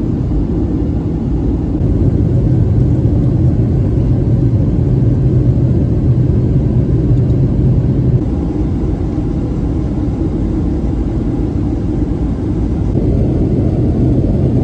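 Steady low drone of jet engines and rushing air heard inside the cabin of a Boeing 757-200 in flight. It gets slightly louder from about two to eight seconds in.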